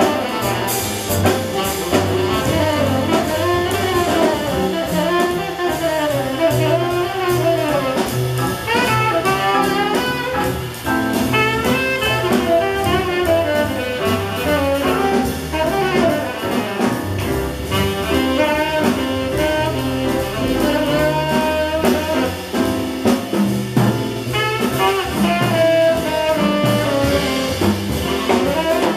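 Live small-group swing jazz: a tenor saxophone improvises a flowing melodic line over plucked double bass and drum kit with cymbals.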